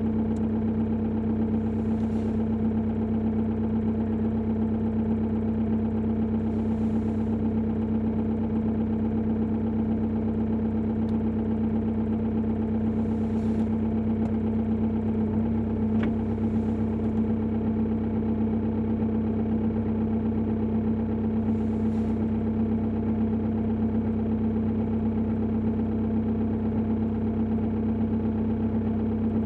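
Opel Insignia 2.0 diesel engine idling steadily with a knock, the idle knock that the owner is recording as a fault.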